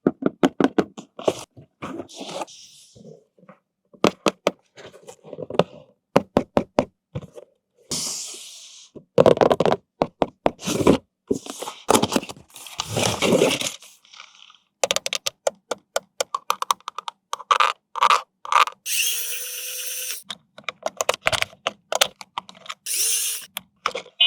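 Plastic toys and packaging being handled: quick runs of clicks, knocks and scrapes in short separate bursts. About three-quarters through comes a few seconds of steady whirring, like a small toy motor running.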